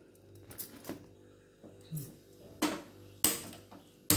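Several sharp clicks of a handheld spark gas lighter being triggered at a gas stove burner, the loudest about three seconds in.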